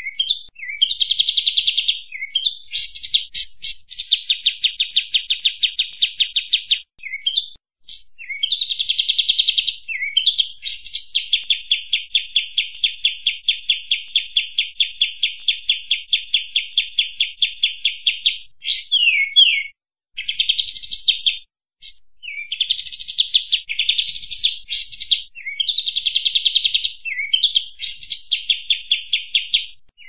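Kapas tembak (olive-winged bulbul) singing continuously in its rapid 'tembak' style. Long, fast trills of repeated notes, the longest about seven seconds, alternate with short sweeping phrases and brief pauses.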